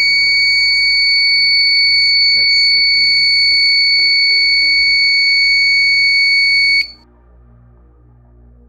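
12 V buzzer in a relay short-circuit protection circuit sounding one loud, steady, high-pitched tone, the alarm that a short circuit has tripped the relay. It cuts off suddenly about seven seconds in, once the push switch resets the circuit.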